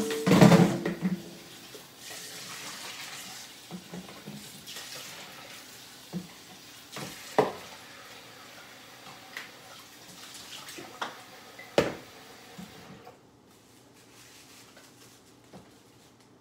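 Kitchen sink tap running steadily as raw salmon pieces are rinsed in a bowl, with knocks and clatter of the bowl against the sink, loudest in the first second. The water is turned off about 13 seconds in.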